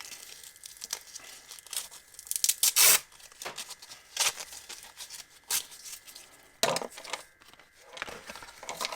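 Packaging being handled and pulled at by hand: irregular rustles and sharp crackles, the loudest about three seconds in.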